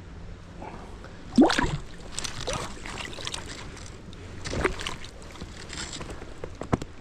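Water splashing in a stream: a loud splash about a second and a half in, smaller splashes after it, and another splash near five seconds, over the steady sound of running water.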